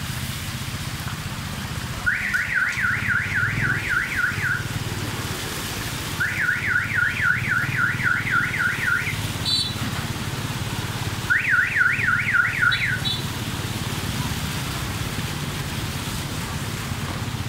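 Electronic alarm siren going off in three bursts of rapid rising whoops, about four a second, each burst two to three seconds long, over a steady low rumble.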